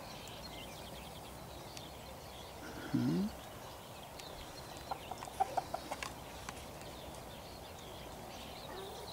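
Domestic hens clucking: one short, low call about three seconds in, then a quick run of short clucks a couple of seconds later, over faint steady outdoor background.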